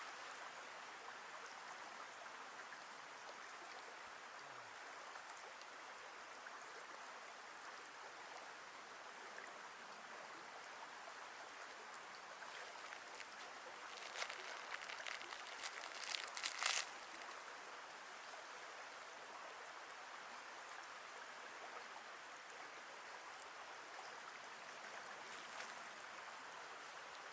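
Steady rushing of flowing stream water, with a few brief crunching clicks about halfway through.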